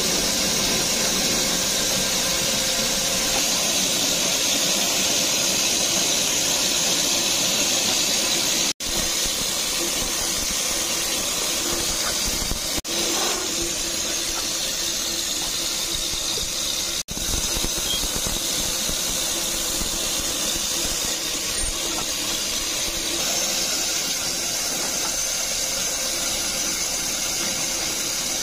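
Motor-driven cutting machine running steadily as it cuts old tyre rubber into strips, a constant hiss with a high whine over it. The sound drops out for an instant three times.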